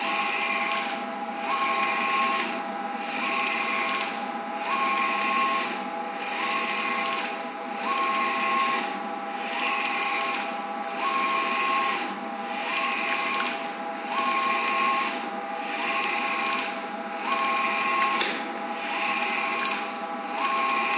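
Wide-format eco-solvent printer's print-head carriage sweeping back and forth across a PVC banner, one pass about every 1.4 seconds. Each pass is a whirring rush with a whine from the carriage drive, with a brief dip as the carriage reverses, over a steady machine hum.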